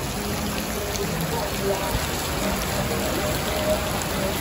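Heavy rain falling on wet pavement and standing water, a steady hiss of the downpour.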